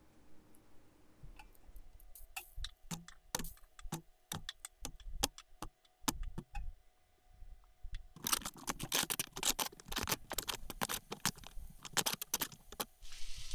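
Metal tongs clicking and aluminium foil crinkling as cubes of smoked beef are turned in a foil tray. At first there are scattered sharp clicks, then dense crinkling and clinking for the last five seconds or so.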